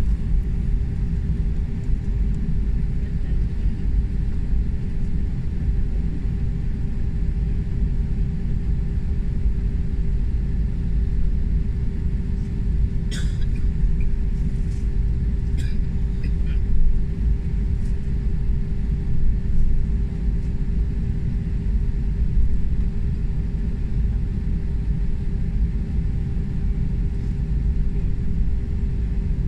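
Steady rumble heard from inside a jet airliner's cabin while it taxis, with the engines running at low power and a constant hum over the rumble. A few light clicks near the middle.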